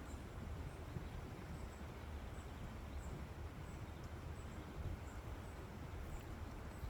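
Leaves rustling in the wind over a steady low rumble, with a small bird's faint, very high, thin chirps repeating every half second or so.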